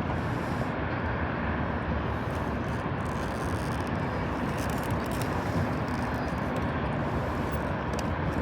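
Wind buffeting the microphone high on a tower: a steady rushing noise, heaviest in the low end.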